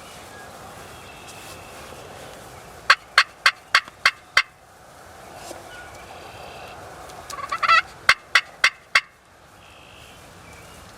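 Turkey yelps: two loud series of sharp, evenly spaced notes about three a second, the second series opening with a quick run of rising notes, over a steady outdoor hiss.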